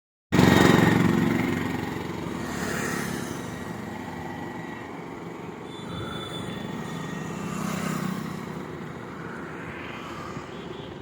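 Motor traffic going by: one engine is loud at the start and fades away, then a steady wash of passing vehicles swells twice more.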